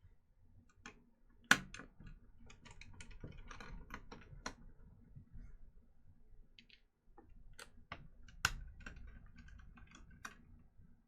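Small screwdriver taking the spring-loaded screws out of a graphics card's back: a run of irregular light clicks and ticks from the tool and screws, with two sharper clacks, one about a second and a half in and one near eight and a half seconds.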